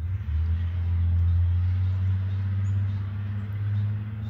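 A motor vehicle's engine, a low steady rumble that comes in suddenly, is loudest in the first half and eases off near the end, as of a vehicle passing close by.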